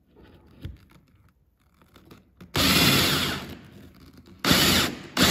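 Power drill boring a twist bit down into a wooden block. Quiet at first, with a soft knock as the bit is set against the wood; the drill starts about halfway in, eases off after a second or so, then runs again in two short bursts near the end as it cuts.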